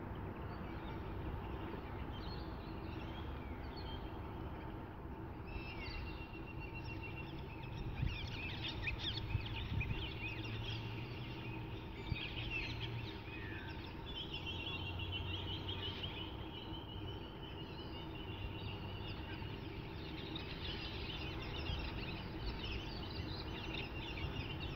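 Wild birds calling and chattering by a river, with repeated rapid trills, over a low steady rumble and a faint steady hum.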